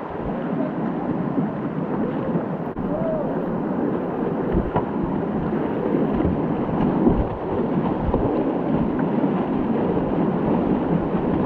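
Whitewater creek rapids rushing and splashing around a kayak running through them, with a few low thumps.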